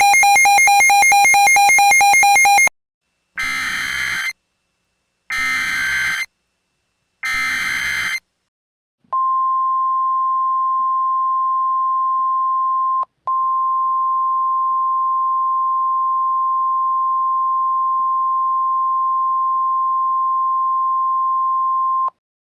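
Simulated NOAA Weather Radio alert sequence. A harsh electronic buzz lasts about three seconds. Then come three short screeching SAME data bursts, and then the steady high 1050 Hz weather radio warning tone, held for about thirteen seconds and cut briefly once partway through.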